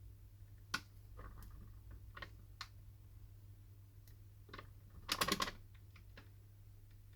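Light clicks and taps of small tools and phone parts being handled during a phone screen repair, with a quick run of several clicks about five seconds in, over a steady low hum.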